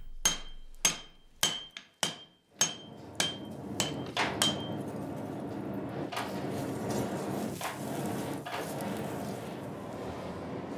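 Hand hammer striking a glowing steel block on the anvil: about ten ringing blows, roughly two a second, drawing the block out into the sword's rough shape. After about five seconds the blows give way to the steady rush of the forge fire.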